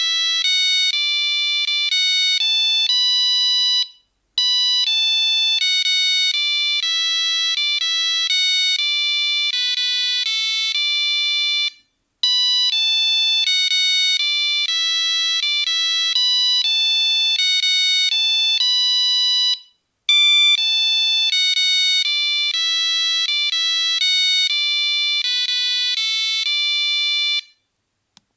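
Nokia 3310 mobile phone playing a monophonic ringtone: a quick tune of single beeping notes, one at a time. The same phrase of about seven to eight seconds repeats, with a brief gap between repeats.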